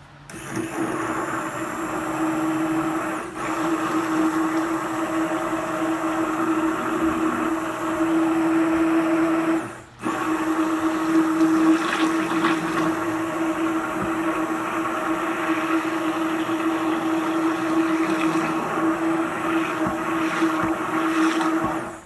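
Handheld immersion blender running in a mug, whirring steadily as it blends butter and peanut butter into hot coffee. It cuts out briefly about ten seconds in, starts again, and stops near the end.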